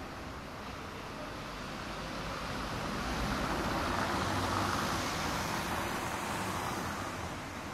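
City street traffic: a passing vehicle's tyre and engine noise swells to a peak about four seconds in and fades away, over steady background traffic.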